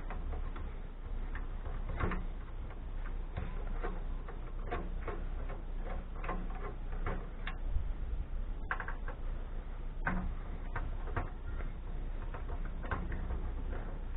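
Irregular light clicks and taps of a hand screwdriver working out the screws that hold a transformer in a scrap amplifier's metal chassis, roughly one click every half second to second.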